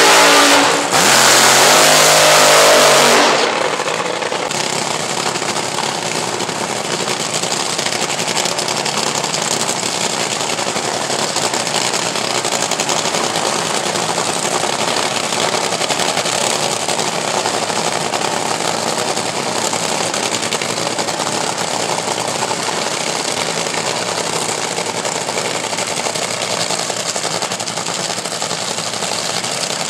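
Top Fuel dragster engines, supercharged nitromethane V8s: loud high revs with shifting pitch for the first three seconds, cutting off abruptly, then a steady, rattling, crackling idle for the rest.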